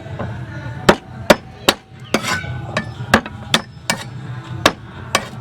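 Repeated sharp knocks of hard strikes in food preparation, such as a blade or pounder hitting a chopping surface, about two a second at an uneven pace.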